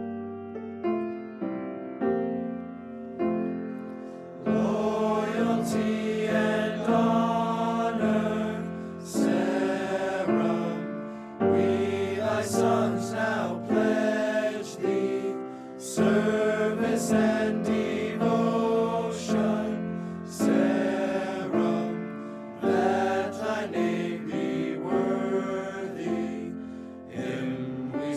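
Piano introduction of single notes, then from about four seconds in a choir singing a hymn with piano accompaniment.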